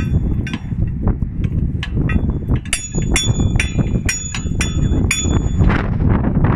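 Repeated sharp metal-on-metal strikes ringing on the same high tones, about two or three a second through the middle, as tools work the steel bolts of a pipeline valve flange. Wind rumbles on the microphone underneath.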